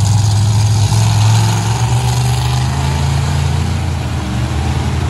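Monster truck engine idling with a loud, steady low rumble that swells slightly about a second in.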